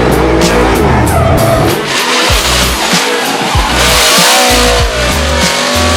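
Drift car engine revving up and down in pitch, with tyres squealing as the car slides. A music track plays underneath.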